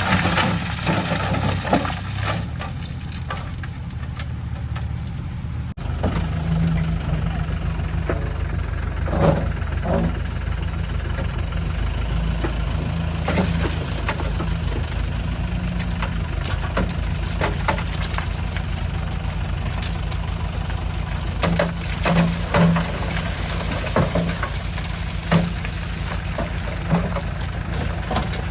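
Heavy machine's diesel engine running steadily at low speed, with scattered short knocks and clatters. The sound changes abruptly about six seconds in.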